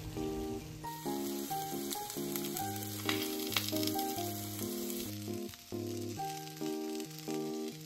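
Food sizzling in a hot frying pan for about four seconds, starting about a second in, over steady background music.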